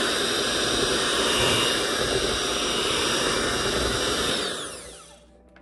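Handheld electric mixer running steadily, its beaters whirring through thick cheesecake batter in a stainless steel bowl. About four and a half seconds in, it is switched off and the whine falls away as the motor spins down.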